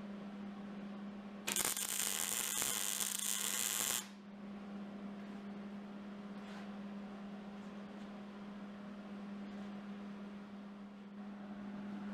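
MIG welder arc crackling in one short burst of about two and a half seconds, a tack or short weld on the steel trolley, which stops abruptly. A steady electrical hum sounds throughout.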